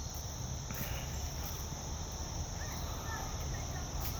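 Steady high-pitched chirring of insects, a crickets-type evening chorus, with a few faint bird chirps and a low rumble of wind or handling noise on the phone's microphone.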